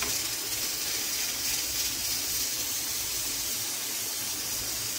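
Steady hiss of a green-sauce stew simmering in a clay cazuela on a gas burner.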